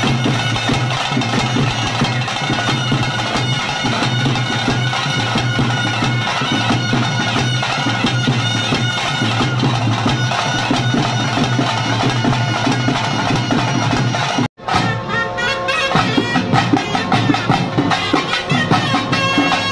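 Nagaswaram, a South Indian double-reed pipe, playing a melody over a steady low drone. About 14 seconds in the sound drops out for an instant, and the music resumes with percussion strokes more prominent.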